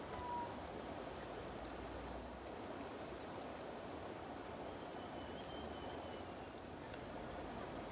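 Steady rush of flowing river water, with a faint high whistle briefly about two-thirds of the way in.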